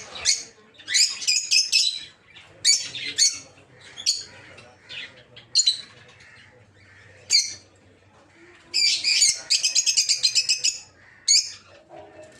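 Peach-faced lovebirds calling with sharp, high-pitched chirps in short bouts. Near the end comes a fast run of rapid chirps.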